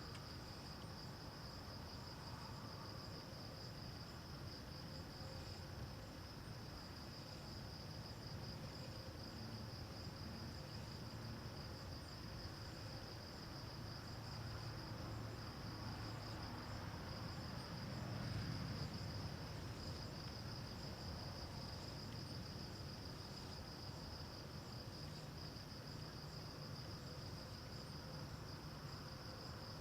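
Crickets trilling steadily in one unbroken high-pitched note, faint. A low rumble underneath swells a little about two-thirds of the way through.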